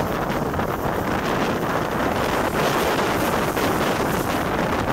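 Wind buffeting the microphone from the side of a moving train hauled by Great Northern Railway V class 4-4-0 compound steam locomotive No. 85 Merlin, over the train's steady running noise.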